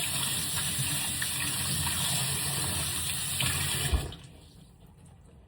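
Water running steadily, cut off suddenly about four seconds in with a short knock.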